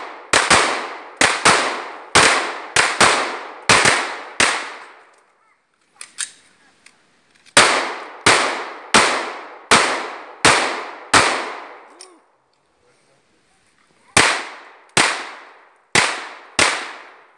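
Handgun shots from two shooters firing in quick succession, about twenty in all, each with a short echo. They come in three runs separated by lulls of two or three seconds.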